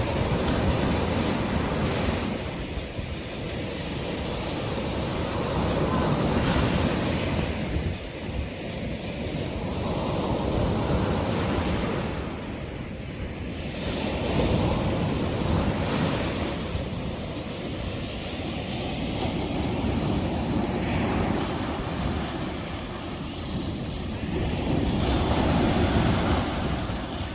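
Sea waves breaking on a sandy beach, the surf swelling and falling back every few seconds, with wind on the microphone.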